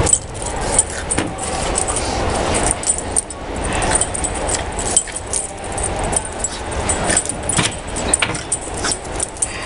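Puppies romping on a concrete floor: a run of light clicks and scuffs, with the metal of their collars and trailing leads jingling, over a steady low hum of the empty hall.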